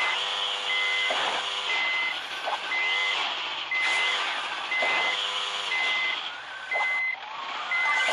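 Snowmobile engine revved in repeated surges, its pitch rising and falling every second or two, while a reverse-warning beeper sounds steadily about once a second.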